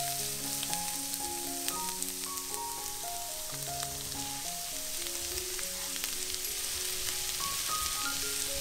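Sliced onions sizzling in hot oil in a frying pan, stirred with a plastic spatula, with light clicks as carrot slices are tipped in and stirred through.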